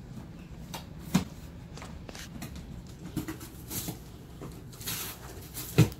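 Husky puppy chewing and pulling at a cardboard box: scattered scrapes, crinkles and clicks of cardboard, with a sharp knock about a second in and a louder thump just before the end.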